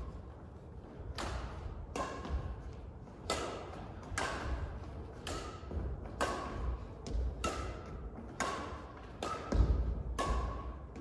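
Badminton rally: rackets strike a shuttlecock about once a second. Each hit is a sharp crack with a short ringing ping and an echo in the hall. Low thuds of footsteps on the court sit under the hits, the loudest near the end.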